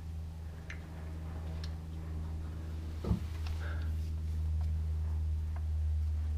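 A steady low hum, with scattered light clicks and one sharper knock about three seconds in, as spark plug wires are handled and fitted onto the engine.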